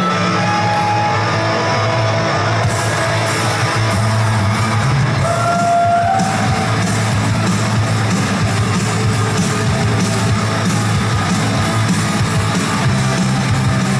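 Loud rock music with electric guitar; a steady beat with cymbal strikes comes in about three seconds in.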